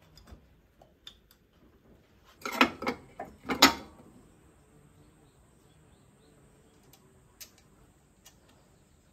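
Metal screwdriver clattering into a steel parts tray, a quick run of sharp knocks and rattles about two and a half seconds in, the loudest near the end of the run. Scattered light clicks of hands working on engine fittings follow.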